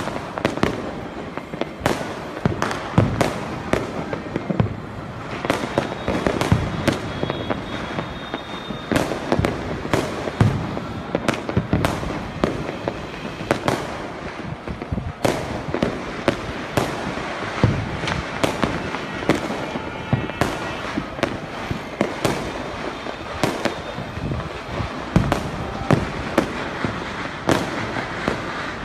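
Firecrackers and fireworks going off without a break, several sharp bangs and cracks a second, louder and fainter ones overlapping.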